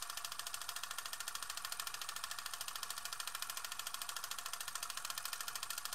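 Film projector sound effect: a steady, rapid mechanical clatter of about nine clicks a second.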